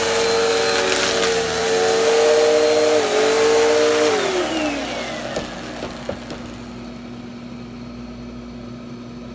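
Bissell PowerForce Helix upright vacuum cleaner's motor running with a steady whine. About four seconds in it is switched off and winds down, its pitch falling as it spins to a stop, leaving a faint steady hum.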